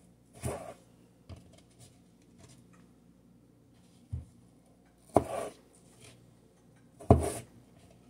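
Kitchen knife cutting through raw potato onto a plastic cutting board. There are three short cuts: one about half a second in, one about five seconds in, and the loudest near the end, with a few light taps in between.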